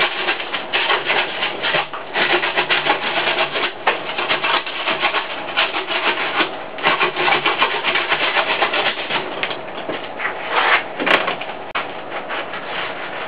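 Gloved hand packing and tamping refractory cement against a sheet-metal flashing shield: a fast, irregular run of rough scraping and rubbing strokes, with a sharp click about eleven seconds in.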